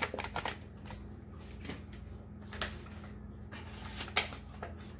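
Foil seasoning packet crinkling and being tapped as the last of the ranch powder is shaken out: scattered light clicks and rustles over a faint steady hum.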